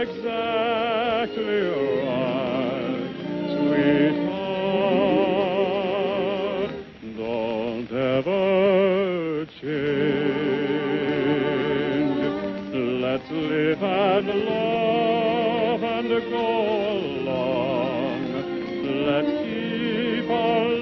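Orchestral music with a slow melody sung or played with wide vibrato, pausing briefly about seven and again about nine and a half seconds in.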